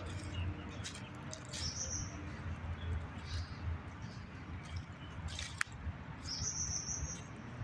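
Bird chirping: two short high calls, one about two seconds in and a longer one near the end, over a steady low background rumble.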